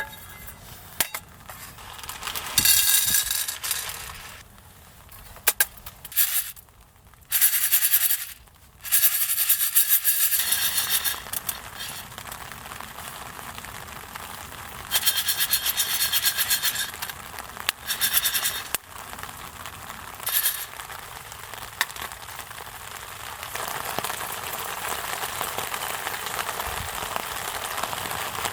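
Rain falling steadily, with several short bursts of clinking and rustling over the first twenty seconds.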